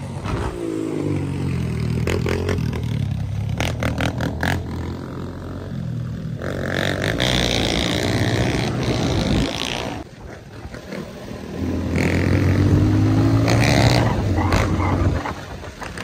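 200 cc dirt bike engine under way on a dirt track, its pitch rising and falling with the throttle; it eases off about ten seconds in, then pulls hardest and loudest from about twelve to fifteen seconds in. A few sharp rattling clicks come about four seconds in.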